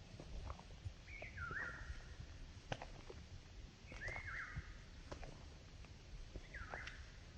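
A bird calling three times, about two and a half seconds apart. Each short call dips quickly and then holds a note. There are faint scattered clicks and a low rumble of outdoor background noise.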